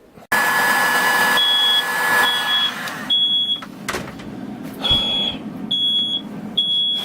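A heat gun blowing with a faint whine, switched off about three seconds in, while a smoke alarm sounds high beeps in groups of three with a short pause between groups.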